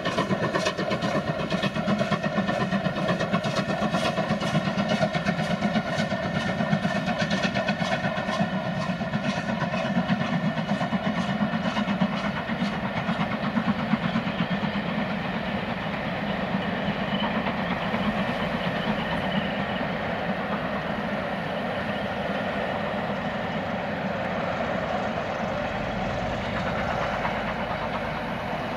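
Steam-hauled passenger train passing behind LMS Black Five 4-6-0 No. 45212: the coaches' wheels click over the rail joints above a steady rumble. Over the second half the clicks die away and the rumble eases off as the train draws away.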